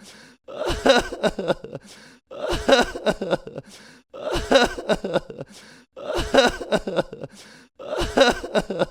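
A vocal sound effect made with the mouth: a short burst of voice about a second and a half long, repeated identically about every 1.8 seconds, five times, like a loop.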